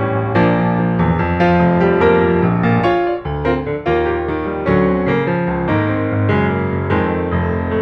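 Background music: piano playing chords and melody notes at a steady, moderate pace.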